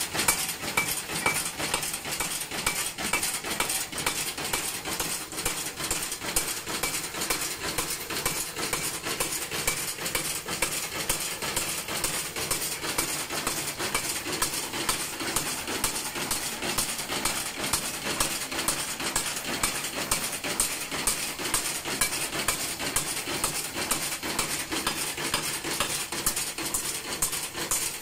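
Homemade belt-driven mechanical power hammer running, its ram striking metal in a rapid, steady rhythm of clanking blows.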